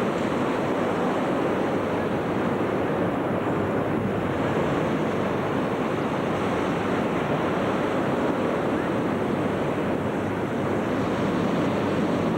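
Steady, unbroken roar of many hot air balloon burners and inflation fans running together, spread into one even rushing noise with no single blast standing out.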